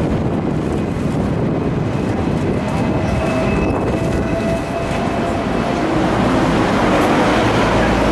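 Hong Kong double-decker tram running along street track: a steady rumble of wheels on rails, with a faint high whine held for a few seconds in the middle, growing a little louder near the end.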